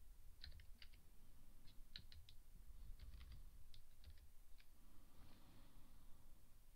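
Faint computer keyboard typing: short keystroke clicks in small irregular groups, stopping about four and a half seconds in.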